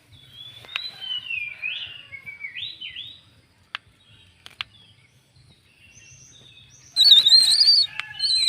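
Bird calls: wavering, gliding whistled notes for about the first three seconds, then a loud, harsh, wavering call starting about seven seconds in. A few sharp clicks fall in between.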